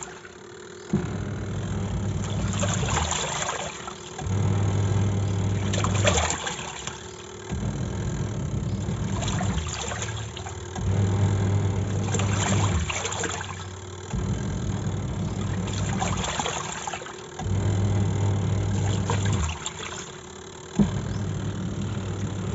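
Semi-automatic top-load washing machine washing clothes in soapy water: the motor hums in runs of about three seconds with short breaks between, as the wash drive turns one way then the other, with water sloshing.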